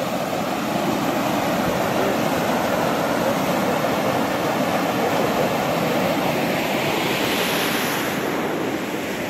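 River rapids rushing over boulders: a steady, unbroken noise of white water, turning a little hissier near the end.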